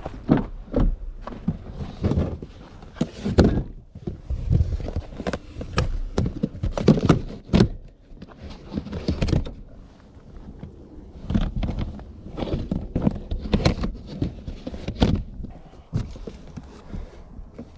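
The rear side door of a Ford Fiesta Mk7 hatchback is unlatched and opened, followed by irregular knocks, thumps and rustling as gear is moved about and a mesh mat is spread over the folded rear seats. The sharpest knocks come about three seconds in, about seven seconds in and near the end.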